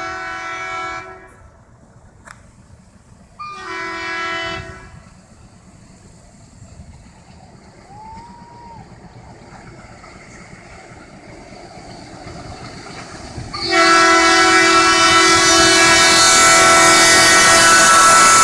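Air horn of a WDM-2 diesel locomotive. A short blast ends about a second in and a second short blast comes at about three and a half seconds. About fourteen seconds in, a long loud blast sounds as the locomotive reaches the camera, over the rising running noise of the train.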